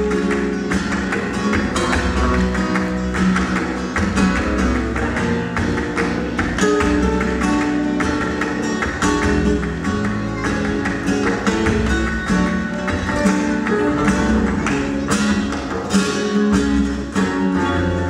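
Flamenco guitar music with quick plucked and strummed notes, playing without a break.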